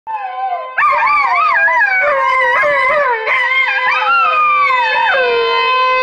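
Two vizslas howling together, long wavering howls that overlap and slide up and down in pitch, starting about a second in. Under the howls runs a steady, unbroken pitched tone.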